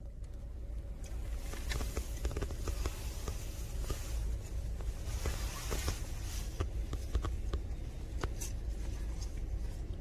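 Steady low rumble of a stopped car's cabin, with irregular clicks and rustles from a phone being handled and moved about.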